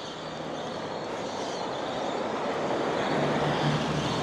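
A vehicle approaching on a wet road: a steady hiss of tyres on wet bitumen that grows louder, with an engine hum coming in about three seconds in.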